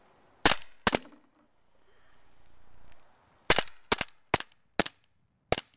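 Winchester M1911 CO2 blowback BB pistol firing seven sharp shots: two in quick succession, a pause of about two and a half seconds, then five more at roughly two a second.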